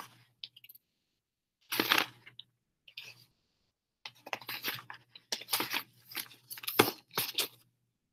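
Sheets of paper being handled and rustled close to the microphone, in irregular short noisy bursts that come thicker from about four seconds in.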